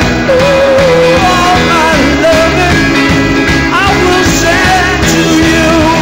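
Live full-band rock music: electric guitars, Höfner violin bass and drums, with a wavering melody line on top.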